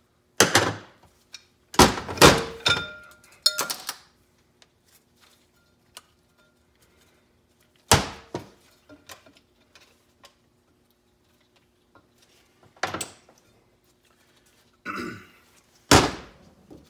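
Metal parts of a 4L60E automatic transmission, the input drum and its clutch plates, being handled and set down on the workbench: a quick run of sharp clanks in the first few seconds, some ringing briefly, then single knocks a few seconds apart and a short rattle near the end.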